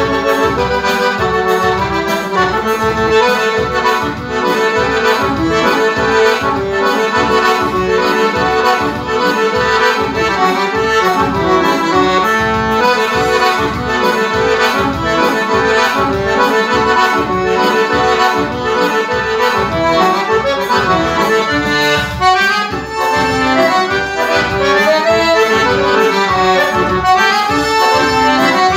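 Piano accordion playing a fast, lively tune: a busy right-hand melody over a steady, evenly pulsing bass beat.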